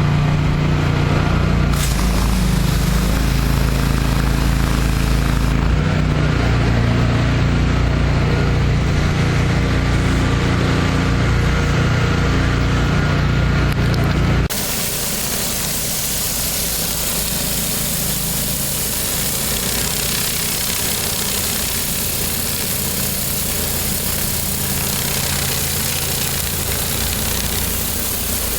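The 30 hp Kohler air-cooled engine of a Hydro Tek hot water pressure washer running steadily. About halfway through, the sound changes abruptly to a loud, even hiss over a weaker engine note.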